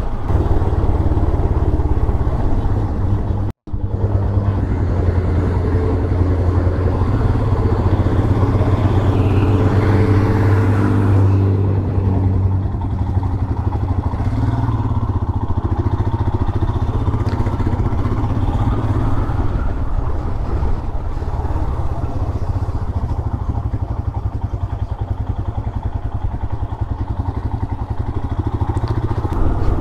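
Motorcycle engine running steadily while the bike is ridden down a winding mountain road, with a low rumble underneath. About three and a half seconds in, the sound cuts out for an instant.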